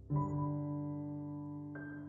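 Melancholic piano tune: a low chord struck just after the start rings and slowly fades, and a higher note comes in near the end.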